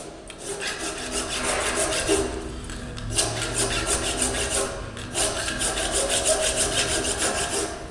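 Nicholson Super Shear curved-tooth file rasping across a soft pot-metal part held in a bench vise, in repeated strokes that tear off chips.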